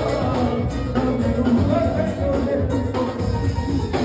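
Live rumba: a man singing into a microphone over congas and a drum kit with cymbals.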